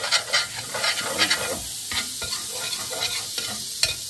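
A metal spoon scrapes and stirs in a large aluminium pot of sizzling butter and olive oil, working loose the browned bits stuck to the bottom. Quick scraping strokes fill the first second and a half, then mostly a steady sizzle with an occasional clink of the spoon.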